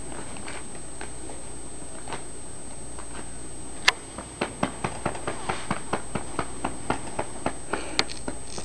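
Newborn bulldog puppy moving in its blanket-lined whelping box, making small clicks and taps: one sharp click about four seconds in, then a quick run of small clicks, about three or four a second.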